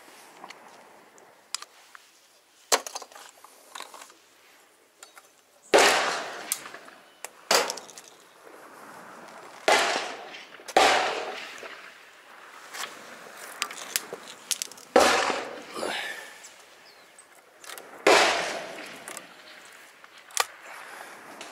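Five shotgun shots from other guns on the range, each ending in a ringing tail, with sharp lighter clicks between them from a side-by-side shotgun's action being opened and reloaded.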